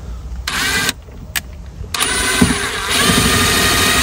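Cordless screw gun driving a screw through plastic trim panelling: a short burst of the motor, then about two seconds in a longer, steady run of its whine.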